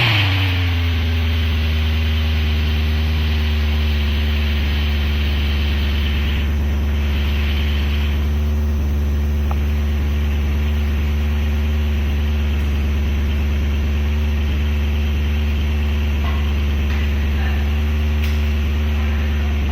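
Mercedes C63 AMG (W204) 6.2-litre V8 running through an IPE F1 valvetronic exhaust, its revs dropping from the start-up flare in the first second or so, then settling into a steady, deep idle.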